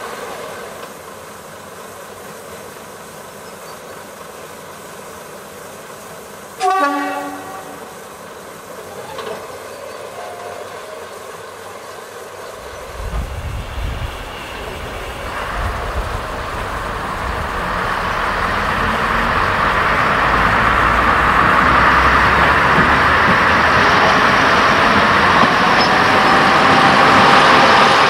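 Sound-fitted model of the Fell diesel locomotive 10100 playing its recorded locomotive sounds through its small onboard speaker. A short horn blast comes about seven seconds in. From about twelve seconds a low diesel engine rumble starts up, and the engine sound grows steadily louder to the end.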